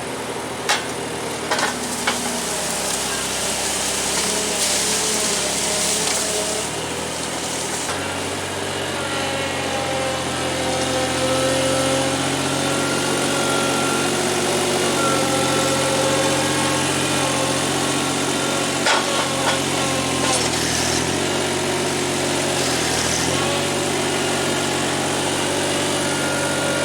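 Diesel engine of a Sterling Acterra Class 7 dump truck running under way, heard from inside the cab. Its note steadies about a third of the way through and dips briefly twice later on, with a few sharp knocks and rattles along the way.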